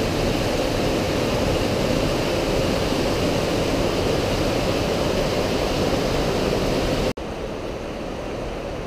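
Fast mountain river water, the Breitach, rushing over rocks through a gorge: a steady, even rush. About seven seconds in it drops abruptly to a quieter, duller rush.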